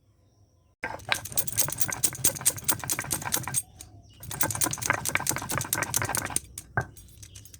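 Mixer grinder grinding whole cumin seeds, with a dense rattling that runs in two bursts with a short pause between them. A few scattered clicks follow.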